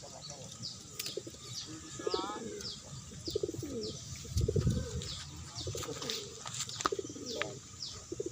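Domestic pigeons cooing, with a steady series of short, high, falling chirps about three times a second.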